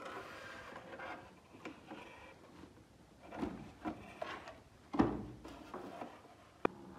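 Handling noises: rustling at first, then scattered knocks, a loud thump about five seconds in and a sharp click near the end.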